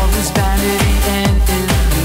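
Hi-NRG electronic dance music played loud over a club sound system: a fast, steady beat of about three drum hits a second, each dropping in pitch, under synth lines.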